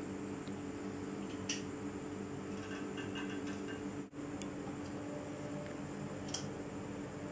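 Steady low electrical hum with an even hiss and a faint high whine, broken by two brief faint clicks and a momentary dropout about four seconds in.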